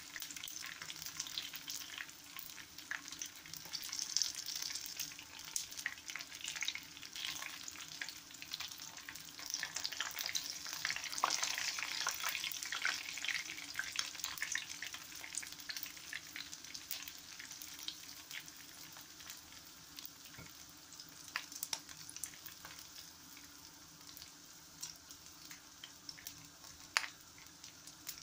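Chicken wings frying in hot oil in a frying pan: a steady sizzle full of small crackling pops. The sizzle is fullest through the middle and thins out near the end.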